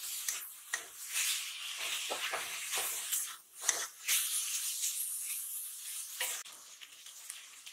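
Metal spatula scraping and tossing snails and ridge gourd around a metal pan in repeated quick strokes, over a steady hiss of frying.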